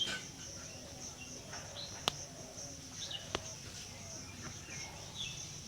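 Outdoor ambience: birds chirping in short falling calls over a steady high insect drone, with two sharp clicks about two and three and a half seconds in.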